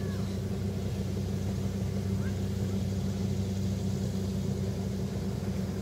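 Rice combine harvester's engine running steadily, a constant low hum that holds one pitch throughout.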